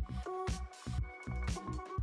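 Background electronic music with a steady beat and sustained synth notes.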